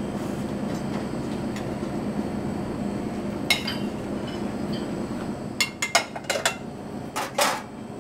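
A metal utensil and pan clinking against a ceramic plate as a dish is plated: one clink about three and a half seconds in, then a quick run of clinks near the end. Under it, a steady kitchen hum.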